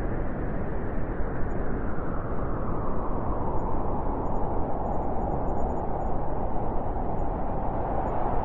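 Blizzard wind blowing steadily, a deep rushing noise with a higher howl that grows stronger from about three seconds in.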